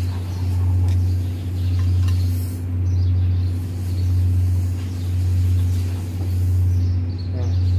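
Steady low mechanical hum that swells and fades evenly about once a second, like a machine or engine running out of sight.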